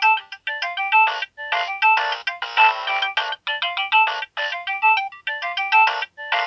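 Nokia 7610 polyphonic ringtone playing through the phone's loudspeaker: a quick melody of short notes, often several at once, in rapid runs with brief gaps. The sound is thin, with no bass.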